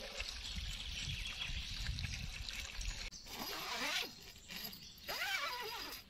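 Birds chirping over wind rumbling on the microphone. About halfway through the wind rumble stops and a few rising-and-falling calls are heard.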